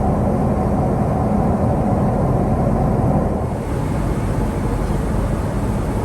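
Boeing 777-200ER jet airliner noise heard in the cabin: a loud, steady rumble with a hiss over it.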